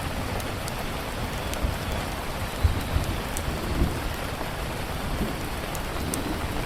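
Steady rainfall with a low rumble underneath and scattered sharp ticks, plus a few heavier thumps in the middle.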